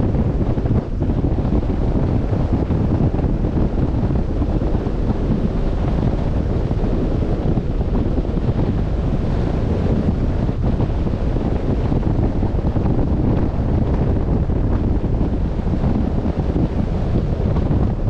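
Steady wind rumbling on the microphone over the wash of the open sea.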